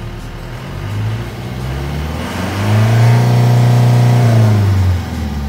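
Toyota Dyna truck's diesel engine, heard from the cab, revved from idle: a short blip about a second in, then a climb to nearly 4,000 rpm that is held for about two seconds before it drops back toward idle near the end.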